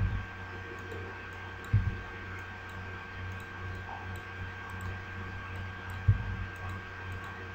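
Three dull knocks of computer mouse and keyboard use (clicks and key presses while typing values into a software dialog), carried through the desk to the microphone, over a steady electrical hum and a faint high whine.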